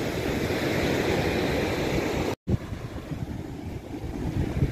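Strong wind buffeting the phone's microphone, a steady rumbling rush. It drops out for an instant about two and a half seconds in, then comes back quieter.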